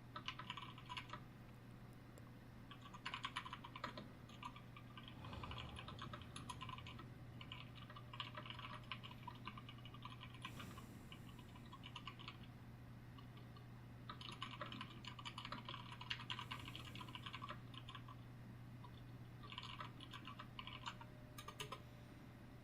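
Computer keyboard typing in runs of quick keystrokes separated by short pauses, over a faint steady low hum.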